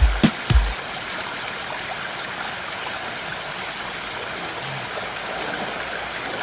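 Valley stream flowing, a steady rush of water. A few heavy music beats cut off in the first second.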